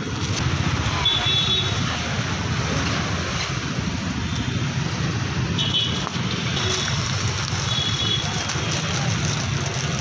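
Busy street traffic noise: motor scooters and auto-rickshaws running past, with several short high-pitched toots.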